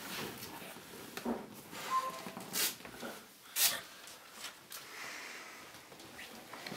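A man breathing in short, sharp breaths with cloth-and-leather rustling as he jolts up from a sofa, in irregular bursts, two of them louder about two and a half and three and a half seconds in.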